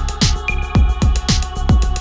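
Electronic background music with a steady kick drum, about two beats a second, over held synth tones.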